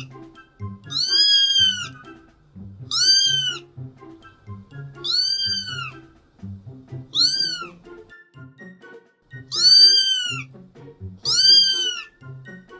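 A cat meowing six times, about every two seconds, each meow rising and then falling in pitch, over background music.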